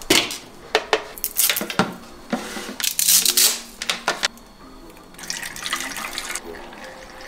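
Plastic cables and a charger being handled and set down, a string of clicks and rustles. About five seconds in comes a short trickle as window-cleaning liquid is poured through a plastic funnel into a spray bottle.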